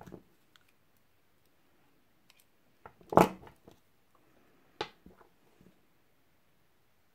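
Handling of jewellery hand tools and wire: scattered small clicks, a louder knock or clatter about three seconds in, and a sharp click near five seconds.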